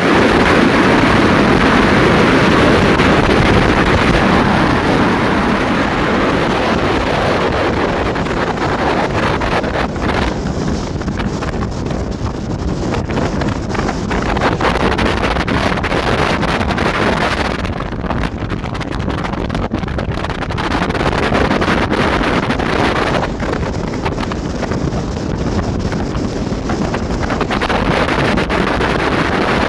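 Wind rushing over the microphone on a rigid inflatable speed boat under way, with the engine and water running past the hull underneath. The rush is loudest near the start and eases and picks up again a few times.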